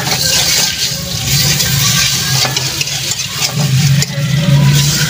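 Metal spoon stirring and scraping wet kwetiau (flat rice noodles) around an aluminium pan, with a hiss and scattered clicks. Under it runs a steady low engine hum that grows louder in the second half.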